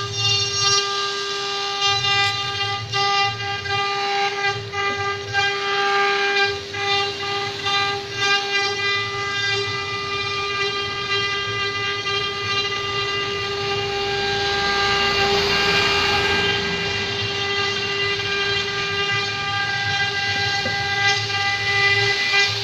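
Multi-spindle CNC wood router carving a relief panel, its spindles giving a steady high-pitched whine over the noise of the cutters in the wood. A hiss of cutting swells about two-thirds of the way through.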